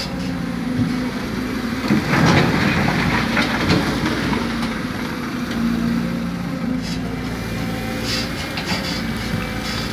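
Heavy earthmoving machinery at work on a soil-loading site: a diesel engine runs steadily, with scattered clanks and knocks throughout, the loudest cluster about two seconds in.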